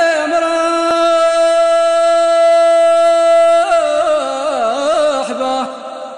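Solo voice singing in the Amazigh rways style: one long held note, then a wavering, ornamented phrase that fades away near the end.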